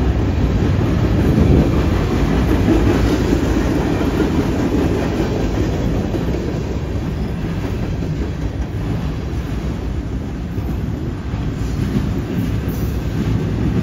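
Freight cars of a passing CN train rolling by: steel wheels on the rails making a steady rumble with clickety-clack.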